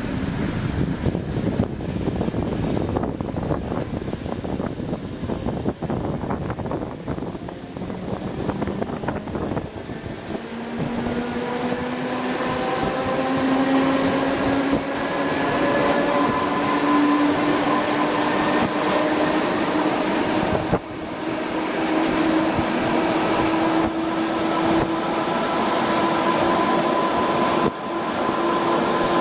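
ER2R electric train running, heard from inside the car: wheels clattering and rattling on the track, then from about ten seconds in a traction-motor whine that rises slowly and steadily in pitch as the train gathers speed after leaving the station.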